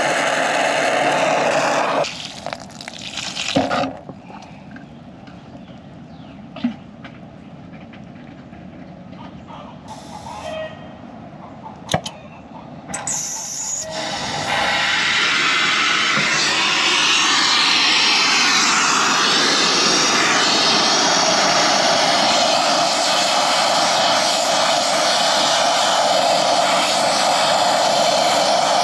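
Brazing torch flame hissing steadily on copper refrigerant line joints. The hiss stops about two seconds in, leaving a quieter stretch with a few sharp clicks. It starts again about halfway through and holds steady, with the flame on a new liquid-line filter drier.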